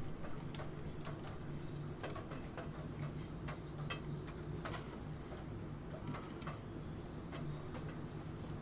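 Computer keyboard keys clicking in sparse, irregular keystrokes, over a steady background of rain.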